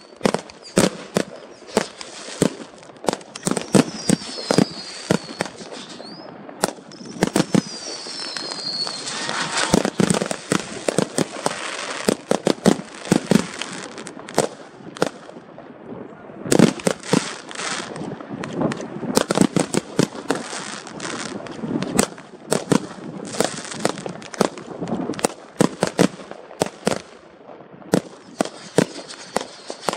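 Fireworks display: a dense run of sharp bangs from bursting aerial shells with crackling between them, and two short whistles falling in pitch about four and eight seconds in.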